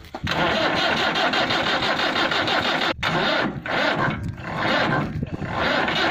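Massey Ferguson 385 tractor's diesel engine running loud under throttle. The engine sound drops briefly a few times in the second half.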